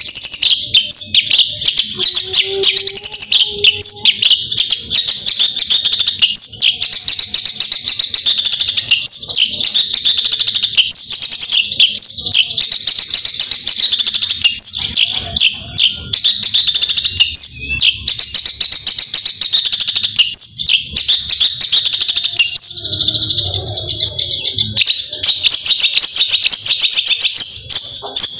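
Long-tailed shrike (cendet) singing a fast, unbroken torrent of high chattering and whistled notes with quick sweeps, the loud rapid-fire 'gacor' song used to stir other shrikes into singing. It breaks off for a short lull about 23 seconds in, then resumes.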